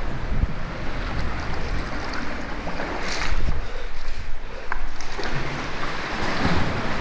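Seawater lapping and sloshing against rocks, with a louder slosh about three seconds in, over a low rumble on the microphone.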